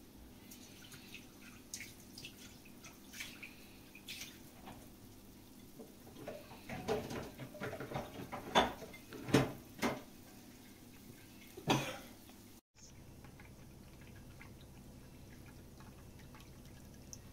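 Scattered short clicks and knocks over a faint steady hum. They are sparse at first and come thicker and louder from about six to twelve seconds in. The sound cuts out for a moment just after that.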